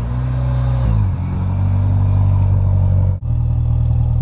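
Honda Civic's four-cylinder engine idling just after starting, its steady low note settling slightly lower about a second in.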